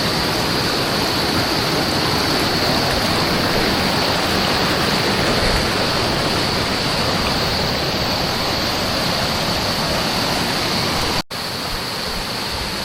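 Waterfall: a steady, loud rush of falling water. It cuts out for an instant about eleven seconds in.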